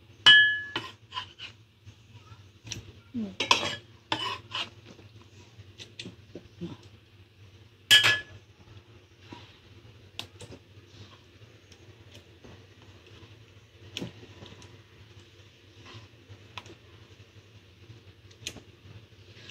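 Chopped tomatoes being scooped off a wooden cutting board into a black enamel pot: scattered knocks and scrapes, with two sharp metallic clinks against the pot that ring briefly, one right at the start and another about eight seconds in.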